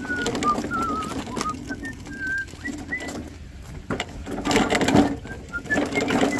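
Push mower rolled across wet pavement and into a garage, with short, high, wavering chirps through much of it. There is a cluster of knocks about four to five seconds in.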